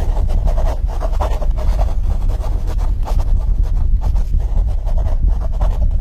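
Pen scratching across paper in quick, irregular strokes, a drawing sound effect, over a steady low rumble.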